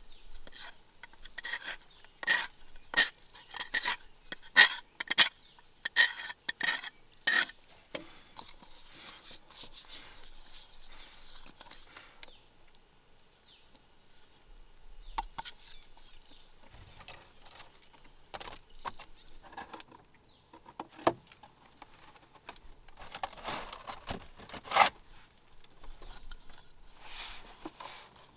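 A knife blade scraping and shaving the outside of a hand-carved bamboo bowl in quick strokes, about one to two a second, then softer rubbing and handling of the bowl with a few light knocks.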